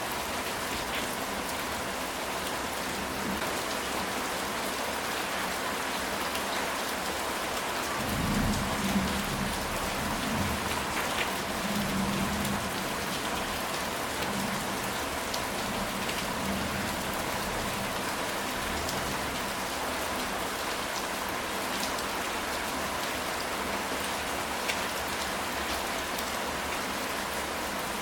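Steady rain falling on a ceramic tile roof, with a low rumble of distant thunder starting about eight seconds in and lasting a few seconds.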